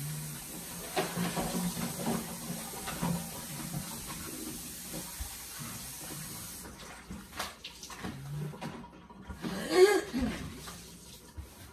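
Broom bristles sweeping spilled sugar across the floor in a series of scratchy strokes. A brief vocal sound near the end is the loudest moment.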